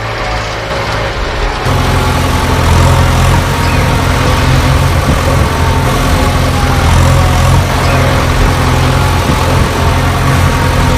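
A heavy diesel engine running steadily with a deep hum, getting louder about two seconds in.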